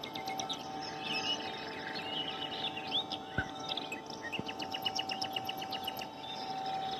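Small birds chirping and trilling in quick runs of short notes, over a steady faint hum.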